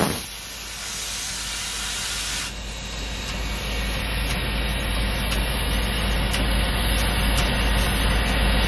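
Steam hissing steadily from around the front cylinder of standing steam locomotive No. 425, over a steady low rumble.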